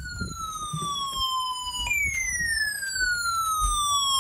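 Midland ER310 emergency weather radio sounding its alert tone after a false activation, the tone glitching: instead of holding steady it slides slowly down in pitch, jumps back up about two seconds in and slides down again, getting louder toward the end.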